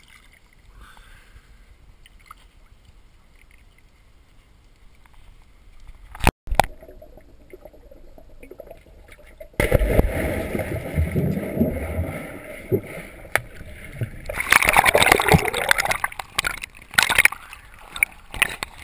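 Dogs splashing in a swimming pool: quiet at first, a sharp click about a third of the way in, then churning and splashing water from about halfway, loudest about three-quarters through.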